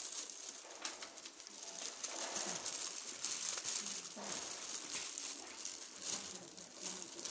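Plastic bag rustling and crinkling as it is handled, a continuous crackly hiss.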